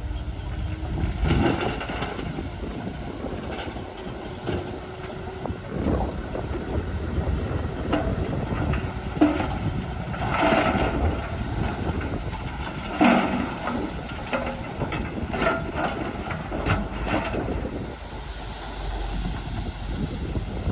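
Diesel earthmoving machinery at work, most likely a Komatsu D31 crawler bulldozer: a steady low engine rumble with irregular metallic clanks and knocks scattered through it.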